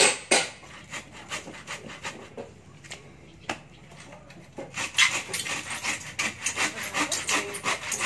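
Handsaw cutting through a wooden plank: a few short, scattered strokes at first, then fast, steady back-and-forth strokes from about halfway.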